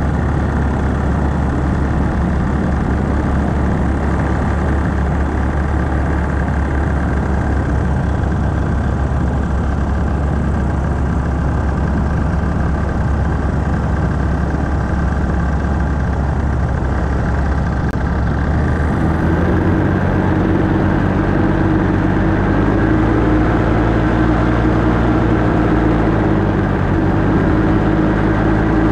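Paramotor engine and propeller running steadily. About two-thirds of the way in the engine note changes and grows a little louder.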